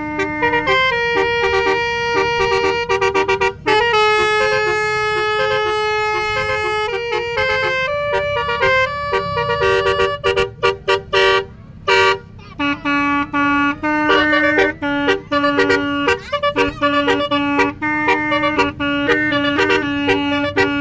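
Telolet horn, a set of tuned air horns, playing a tune: long held notes and chords in the first half, then a run of short, quickly repeated notes. A low steady rumble runs underneath.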